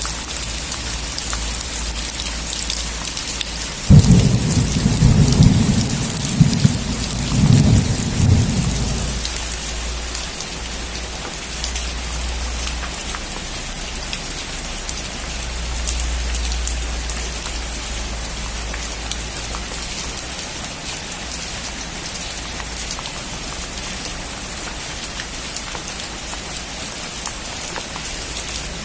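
Heavy rain drumming steadily on a metal roof, with fine ticks of drops. About four seconds in a thunderclap breaks suddenly into a loud low rumble that rolls in several swells for about five seconds before dying away under the rain.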